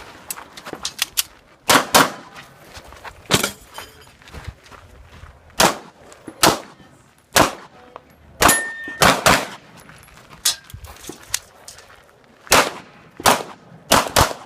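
A string of about a dozen shots from a Walther PPQ 5-inch pistol fired at an uneven pace, some in quick pairs, with struck steel targets ringing.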